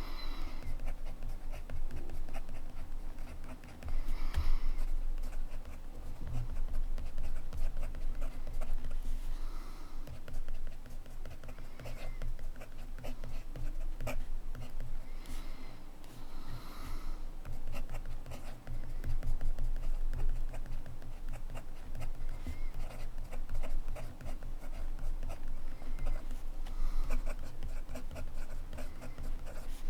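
Montblanc Meisterstück 144 fountain pen writing on paper: the repaired nib scratches softly and steadily across the page in continuous strokes.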